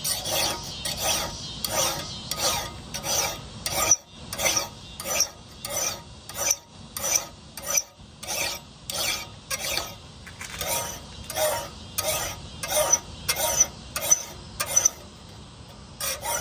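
Hand file rasping across the bevel of a forged knife blade clamped in a bench vise, in steady, even strokes about three every two seconds, fainter near the end. The file has cut through the forge scale and is biting into fresh metal.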